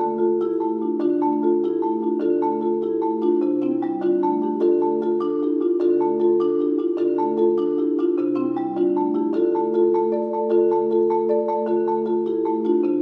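Solo marimba played with mallets in a fast, even stream of notes. Low bass notes change every half second or so under a repeating higher figure.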